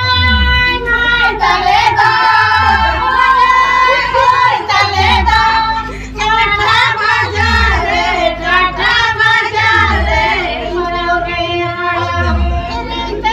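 A group of women singing a Ho wedding song together in chorus, with a deep drum beat recurring about every two seconds underneath.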